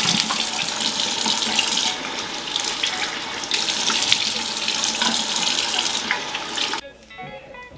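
Water running steadily from a sink tap, shut off abruptly near the end.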